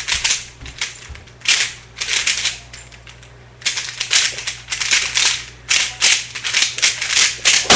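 Plastic Dayan GuHong speedcube clacking rapidly as its layers are turned in quick bursts of clicks, with a pause of about a second partway through.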